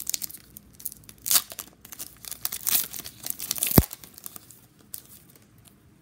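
A hockey card pack's wrapper being torn open and crinkled in the hands, with crackling through the first few seconds. A single sharp thump comes a little before four seconds in, and quieter handling follows.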